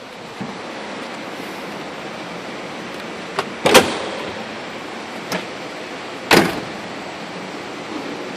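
A car door of a 1968 Corvette slammed shut with a loud thump a little under four seconds in, followed by a second loud thump a few seconds later and a few lighter knocks, over a steady hiss.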